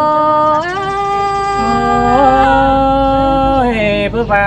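Two voices singing a Thái folk love song in long, drawn-out held notes. The second, lower voice joins about one and a half seconds in, and both slide down in pitch near the end.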